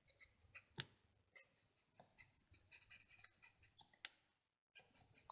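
Faint scratching of the brush tip of a Stampin' Blends alcohol marker stroking over cardstock in short repeated strokes, with a couple of light clicks.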